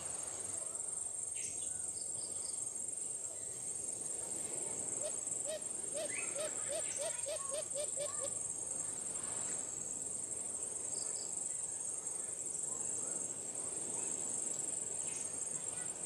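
Insects keep up a steady, high-pitched drone throughout. From about five to eight seconds in, a dove gives a run of about a dozen short, low notes, roughly three a second.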